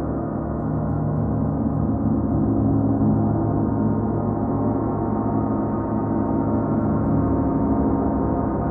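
A 38-inch Paiste gong ringing in a continuous wash of many overlapping deep tones, with no separate strikes. The sound swells slightly about three seconds in and again near the end.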